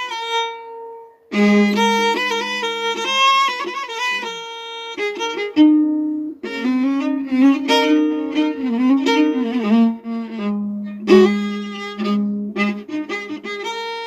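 Instrumental background music: a melody of held notes that slide between pitches, broken by short pauses between phrases.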